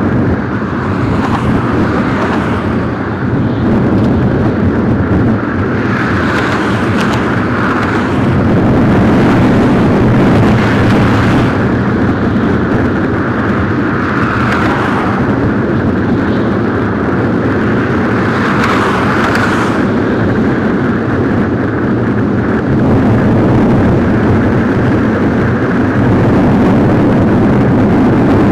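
Ship's deck crane machinery running steadily during a heavy lift, a low hum under a rushing noise that swells every few seconds.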